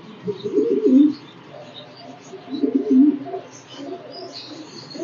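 Domestic high-flyer pigeons cooing: two bouts of low, wavering coos, the first about half a second in and the second about two and a half seconds in.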